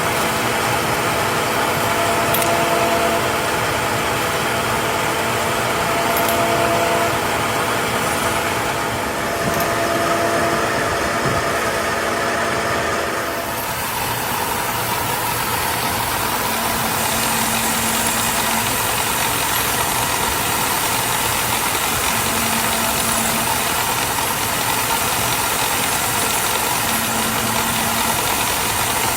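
Workshop machinery running steadily, a mechanical hum with several held tones. About halfway through those tones stop and a different steady machine hum continues.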